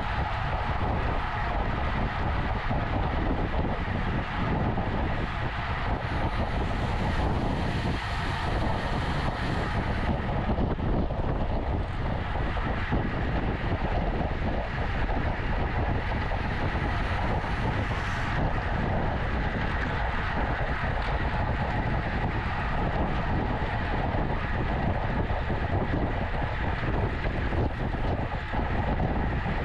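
Steady rush of wind and road noise from a road bike moving at race speed.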